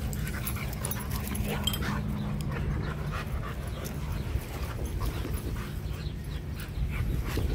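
Several dogs playing and wrestling on grass, heard as scattered short scuffs and clicks over a steady low rumble. A faint low hum stops about four seconds in.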